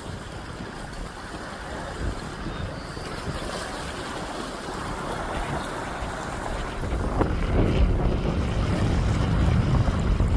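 Wind buffeting the microphone over a steady rushing noise, the low rumble growing stronger over the last few seconds.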